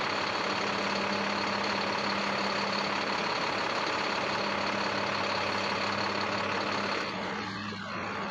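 International CE school bus's diesel engine running steadily with a constant low hum. The sound thins out and drops a little about seven seconds in.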